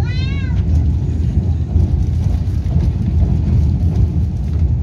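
Steady low rumble of a Taiwan Railway EMU3000 electric multiple unit running along the line, heard from inside the passenger cabin. A short, high pitched tone sounds in the first half second.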